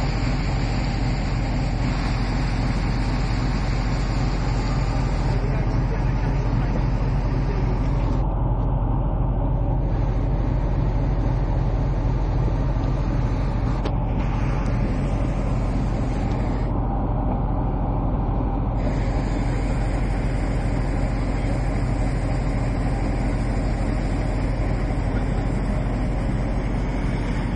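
Boat engine running steadily, a constant low drone with no change in speed.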